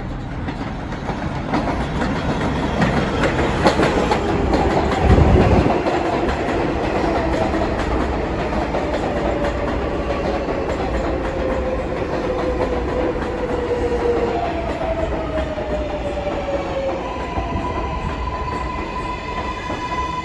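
New York City Subway R188 train pulling into the station and braking, its wheels clattering along the rails. A whine falls in pitch twice as it slows, then holds at one steady high note as it comes to a stop near the end.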